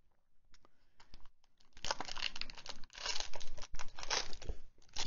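Clear plastic sleeve around a fountain pen crinkling as the pen is handled and lifted out of its box, a dense crackle that starts about two seconds in after a quiet moment.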